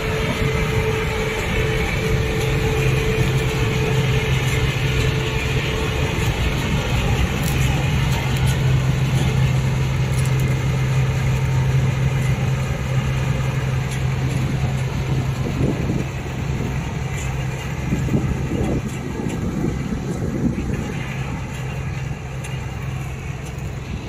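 CLAAS combine harvester running as it harvests sunflowers: a steady low engine hum over the dense rumble of its threshing machinery, fading somewhat in the second half as the machine moves away.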